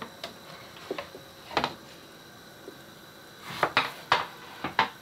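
Kitchen knife slicing an aubergine on a wooden chopping board: irregular knocks of the blade hitting the board, a few near the start, one cluster about a second and a half in and a quicker run of knocks near the end.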